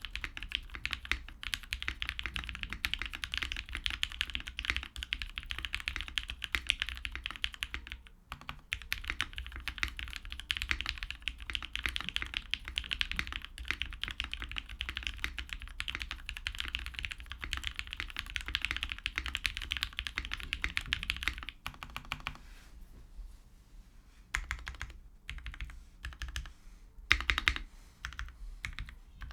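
Custom mechanical keyboard with lubed Tealios V2 linear switches on a POM plate being typed on, a fast, continuous run of keystrokes that thins out about three-quarters of the way through into slower, scattered key presses, with one louder stroke near the end.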